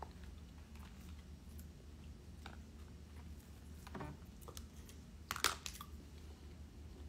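Scattered light clicks and taps of chopsticks against a plastic takeout food tray, with one sharper clatter about five and a half seconds in, over a low steady room hum.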